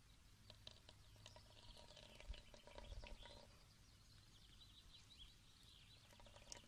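Near silence: faint outdoor ambience with small birds chirping now and then, including a quick run of chirps a little past the middle.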